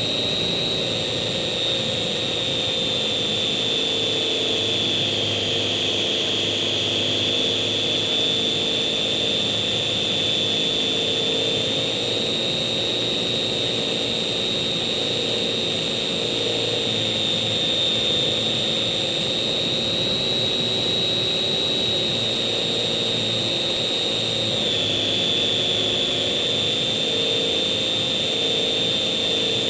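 Slow Stick model airplane's electric motor and propeller running steadily, with a high whine and a lower hum. The pitch shifts slightly up and down several times as the throttle changes.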